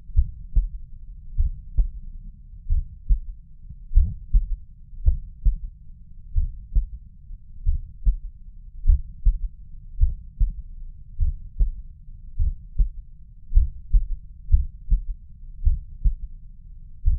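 Human heartbeat heard at the mitral valve area (cardiac apex) with the listener lying on the left side: a steady lub-dub of dull low thumps, about one beat a second. The uploader hears a third heart sound (S3), a faint extra thud after the second sound, in this position.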